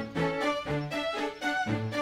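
Background music for string quartet: violin and cello notes over a moving bass line, with the low notes changing about twice a second.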